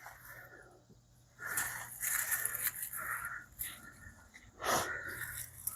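Footsteps scuffing and rustling through garden soil and plants: several noisy scrapes and crunches, with a louder one near the end.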